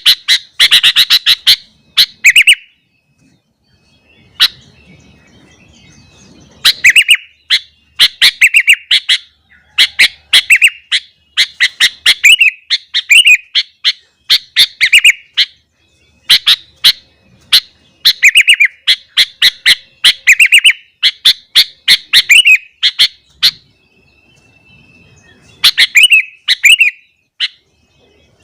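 Sooty-headed bulbul (kutilang) singing loudly and close by: rapid runs of sharp chattering notes and short bubbly whistled phrases, repeated again and again, with brief pauses about three seconds in and again near the end.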